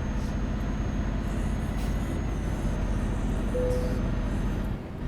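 A vehicle engine running steadily with a dense, low rumble. A short steady tone sounds about three and a half seconds in.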